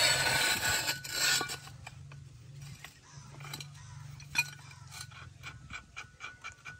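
Iron on iron: a rusty flat clamp bar scraping loudly against a steel bore pipe for about the first second and a half as it is fitted around it, then light metal clinks and taps, with one sharper click near the middle.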